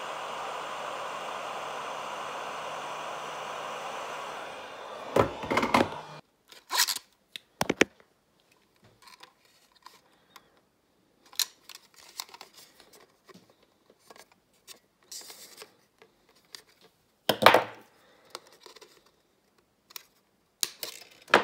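Heat gun blowing steadily with a hiss and faint hum, shrinking heat-shrink tubing over soldered wires, then switched off about four seconds in. After that come scattered plastic clicks, taps and knocks as the soap dispenser's casing and lid are handled and fitted back together, with one louder knock about 17 seconds in.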